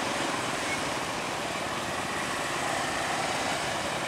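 Diesel locomotive engine running as the train approaches, a steady rumble.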